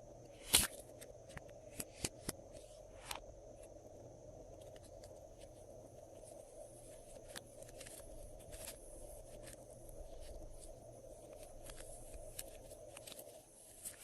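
Glossy slime being mixed and squished by hand, giving scattered sharp clicks and small pops, the loudest about half a second in.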